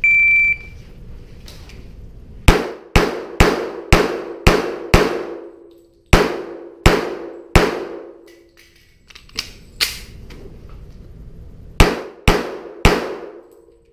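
Shot timer beeps once, then a semi-automatic pistol fires about a dozen shots in quick strings (six fast shots, three more, a couple of lighter reports, then three), each echoing in an indoor range.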